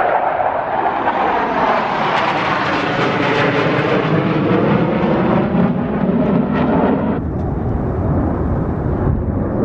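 Jet aircraft making a loud, low pass overhead: a steady roar with a sweeping, phasing tone as it goes by, its high hiss dropping away after about seven seconds as it moves off.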